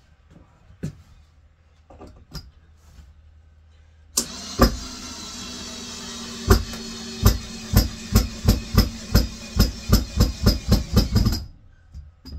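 Cordless drill driving a screw into the bed frame's timber. Its motor whine starts about four seconds in, with a run of sharp knocks that come faster and faster until it stops near the end. A few light handling clicks come before it.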